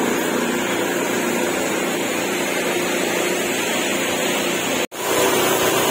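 Steady machine hum and hiss with a faint low drone, cutting out for an instant near the end before carrying on.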